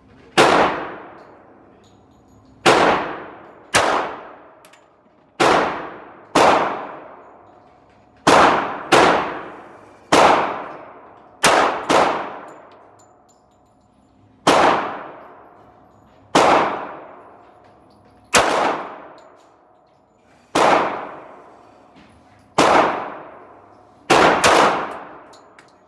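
Gunshots on a pistol range, fired at an uneven pace: about sixteen loud, sharp reports in a row, some in quick pairs. Each one rings out in a long echo that dies away over about a second.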